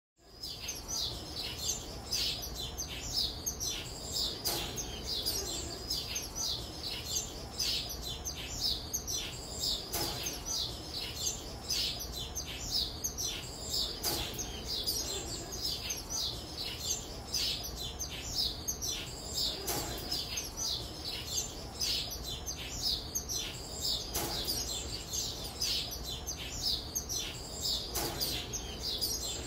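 A group of Eastern Phoebe fledglings giving a dense, unbroken chorus of short, high begging chirps, many overlapping, several each second.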